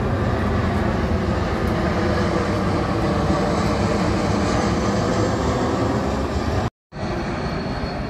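Steady rush of the Lower Düden Waterfall's falling water. It cuts out for a moment about seven seconds in, then carries on.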